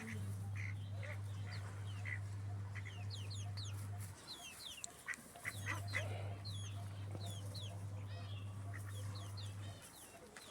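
Chickens clucking, with many high, falling peeps like those of chicks. Under them is a steady low hum that cuts out about four seconds in, comes back, and stops again near the end.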